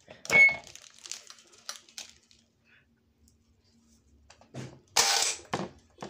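Clicks and rattles from a plastic intercom handset being handled, with a louder, short rasping burst about five seconds in.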